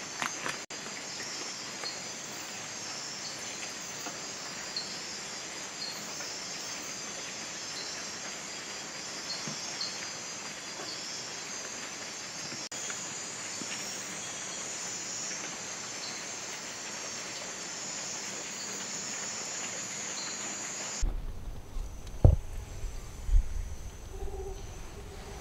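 Steady high-pitched drone of a tropical rainforest insect chorus, with faint regular chirps on top of it. About 21 seconds in it cuts to a low rumble with a few sharp knocks, the loudest about a second after the cut.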